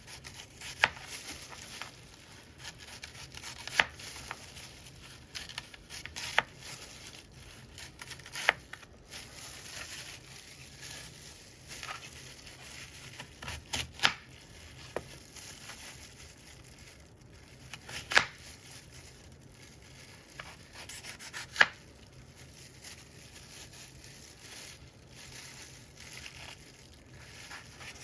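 Apples being cut with a knife: crisp cutting and rustling, broken by a sharp knock every few seconds.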